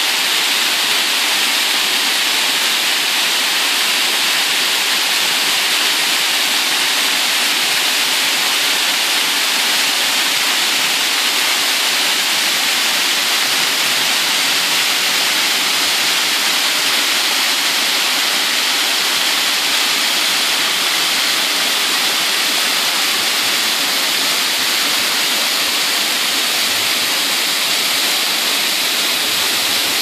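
Small waterfall pouring over a rock ledge and splashing onto the rocks below: a steady, unbroken rush of falling water.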